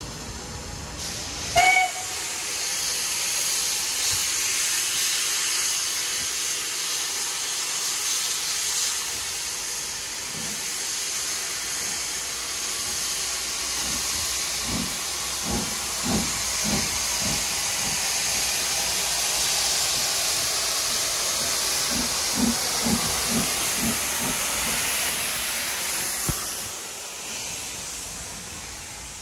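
Steam locomotive giving a short whistle blast about two seconds in, then a loud, steady hiss of escaping steam. Two runs of about half a dozen low exhaust beats come near the middle and later on, and the hiss fades near the end.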